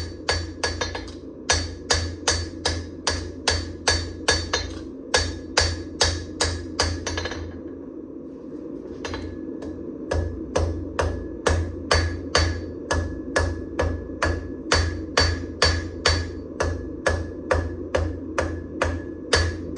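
Hammer blows on the hot damascus knife steel, evenly paced at about three a second, each with a short metallic ring. The blows stop for about two seconds near the middle, then resume, over a steady low hum.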